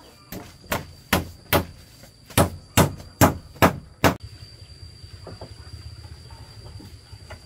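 Nine hard strikes of a hand tool, in two quick runs of about two to three blows a second, stopping about four seconds in. A faint steady high tone runs underneath.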